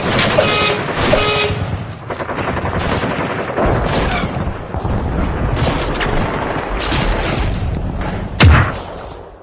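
Rapid, dense volley of sharp bangs like automatic gunfire, with one loud boom about eight and a half seconds in. Music plays briefly at the start.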